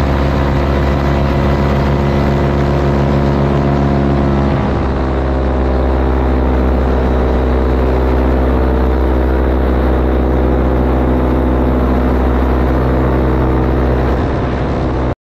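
Paramotor engine and propeller running steadily in flight, a continuous drone whose note shifts slightly about five seconds in and eases a little near the end. The sound then cuts off suddenly.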